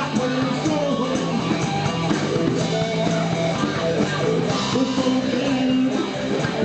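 Blues-rock band playing: guitar over a steady drum beat.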